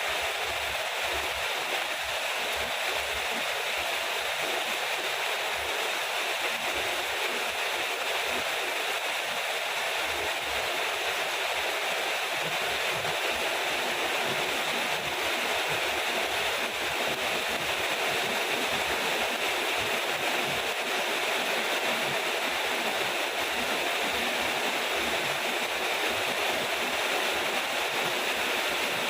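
Steady rain, an even hiss without separate drops standing out and without thunder.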